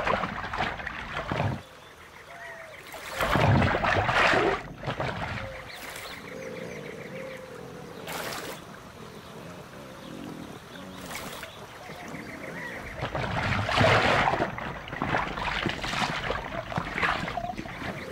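Water splashing and churning as Australian pelicans plunge their bills into the water after fish, in three loud bursts: at the start, about three to four seconds in, and from about thirteen to seventeen seconds in.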